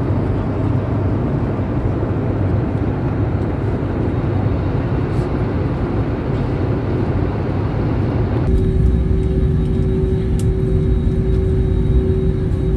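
Steady airliner cabin noise: an even rush of air over a low rumble. About eight and a half seconds in it switches abruptly to a steadier drone with a humming tone.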